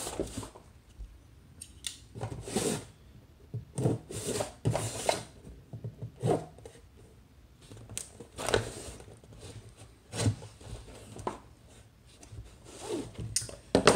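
Folding knife slitting the packing tape and cardboard of tackle-box shipping packages, a series of irregular short scrapes and rustles as the boxes are cut and pulled open.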